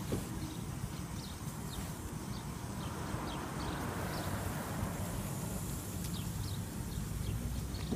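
Garden hose spraying water onto a dog's wet coat and the pavement, a hiss that swells for a few seconds in the middle, over a steady low rumble.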